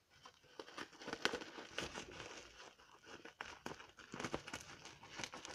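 Plastic bubble wrap crinkling and crackling in the hands as a parcel's wrapping is pulled apart, in irregular small crackles.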